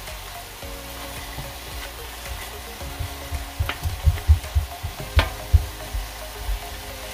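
Chicken pieces sizzling as they sauté with lemongrass and onion in a stainless steel stockpot, stirred with a wooden spatula. From about three seconds in, the spatula knocks and scrapes against the pot, with two sharp clacks.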